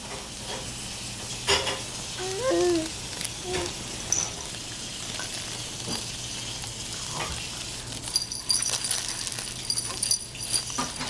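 A baby's short cooing vocalization about two seconds in, rising and falling in pitch. Near the end, soft fabric toy blocks are handled, making a crinkly rustle.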